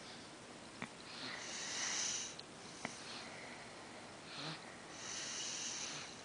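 Slow breathing close to the microphone, two long airy breaths about three and a half seconds apart, with a few faint clicks in between.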